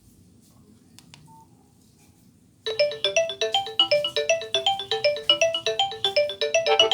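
Nokia 6085 mobile phone playing a polyphonic ringtone through its loudspeaker: after a few quiet seconds, it starts suddenly with a quick run of short melodic notes. A fuller accompaniment joins near the end. A faint click and a short beep come about a second in.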